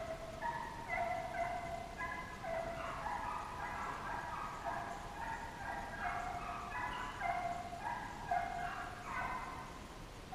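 A pack of deer hounds baying on the chase, many voices overlapping in a continuous chorus of drawn-out bawls.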